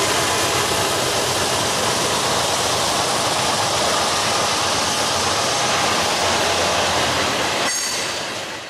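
Double-stack container train rolling past: a steady rush of wheels on rail from the passing well cars, fading near the end.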